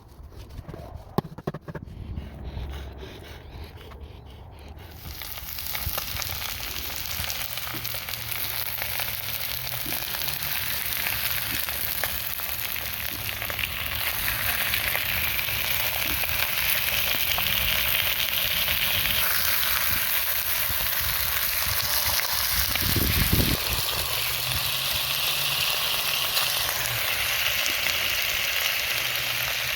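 Food frying in a cast iron pan over a campfire: a steady sizzle that starts about five seconds in, after a few seconds of quieter sound with scattered clicks.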